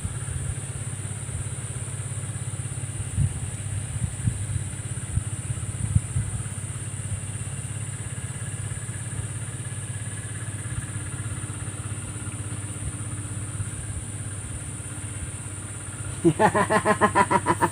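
Steady low hum under a steady high-pitched insect drone, with a few faint knocks in the first few seconds. Near the end a quick run of pulsed calls comes in.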